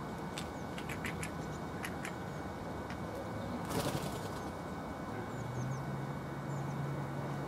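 Eurasian jay's wings flapping in one brief flutter as it flies off, a little before four seconds in, over steady outdoor background hiss. A few short high ticks come in the first two seconds.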